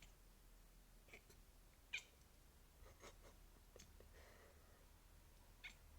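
Domestic cat chattering at a bird it can see: a handful of short, faint chirps and clicks, the loudest about two seconds in.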